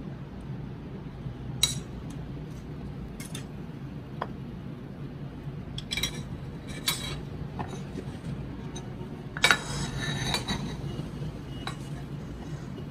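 Stainless-steel kitchen tongs clinking against a ceramic plate while turning rice cakes in grated coconut: a few separate sharp clinks, with a louder clatter about nine and a half seconds in.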